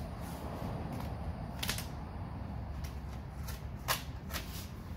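Vinyl wrap film being pulled and stretched by hand over a boat hull, giving a few short, sharp crackles, about two seconds in and again near the end, over a steady low hum.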